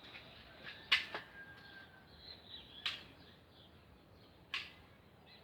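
Faint birds chirping in the background, with four sharp clicks or taps at irregular intervals.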